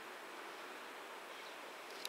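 Faint steady outdoor background noise, with a couple of light clicks near the end.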